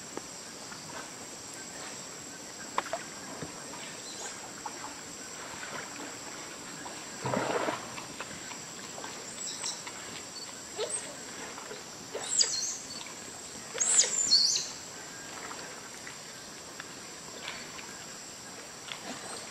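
Giant otters calling while feeding over a steady high drone of rainforest insects: one lower call about a third of the way in, then two sharper, louder squealing calls a couple of seconds apart past the middle.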